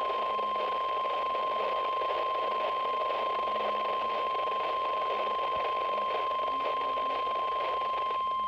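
Weather Radio Canada's 1050 Hz weather radio alarm tone: one steady, unbroken tone over radio hiss, sent as the monthly test of the tone alarm feature on alert-equipped weather radios.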